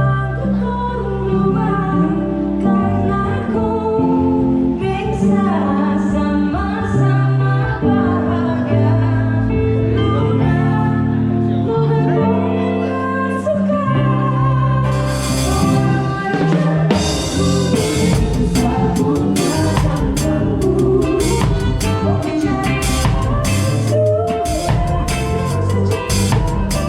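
Live band music: sustained chords over a moving bass line, with the drum kit coming in about halfway through, a cymbal crash and then a busy beat.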